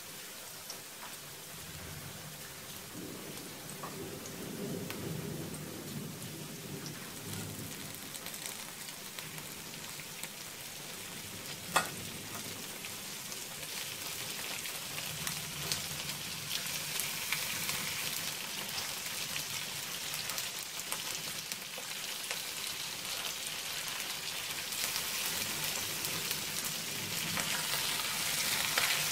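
Ginger sizzling in hot oil in a wok as a spatula stirs it; about twelve seconds in there is one sharp knock, and from then on the sizzling grows louder and brighter once whole prawns are in the pan and being turned.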